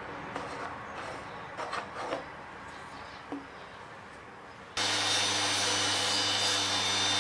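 A few light knocks of wood being handled, then about two-thirds of the way in a woodworking power tool switches on abruptly and runs steadily with a low hum and a high whine.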